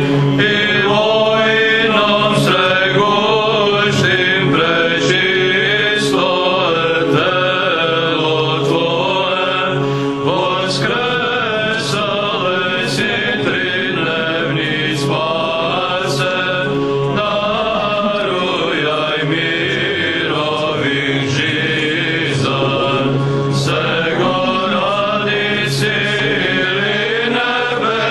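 Orthodox church chant: voices singing a slow, winding melody over a steady held drone note.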